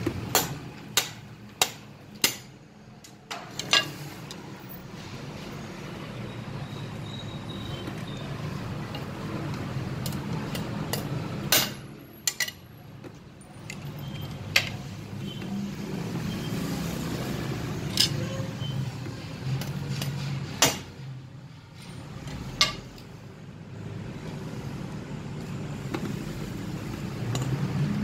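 A golok slaughter machete's steel blade chopping down onto steel nails on a block, in a blade-strength test, with sharp metallic strikes and clinks: four or five in quick succession at the start, then single ones every few seconds. A steady low hum runs underneath.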